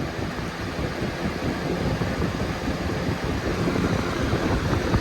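Lasko 3733 box fan running steadily on high speed, a whooshing air rush with a rumbling buffet of its airflow on the microphone.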